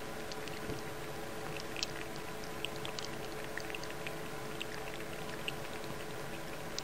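A cat lapping water from a bowl: small, irregular wet clicks and splashes, a few a second, over a steady low hum.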